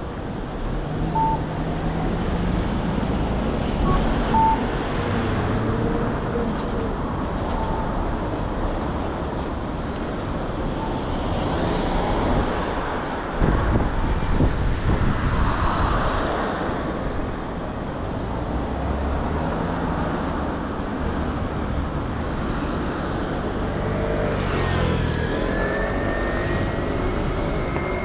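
City street traffic: motor vehicle engines running and passing. There is a sudden low knock about halfway through, and a rising whine near the end as a vehicle pulls away.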